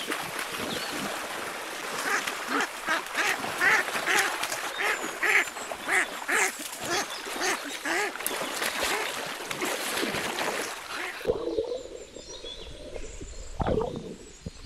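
Ducks quacking repeatedly, a short call about every half second in the first half, over splashing water. About 11 seconds in, the sound turns muffled, as heard with the microphone underwater.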